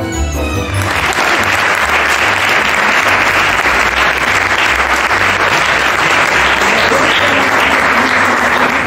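Audience applauding, starting about a second in, over background music.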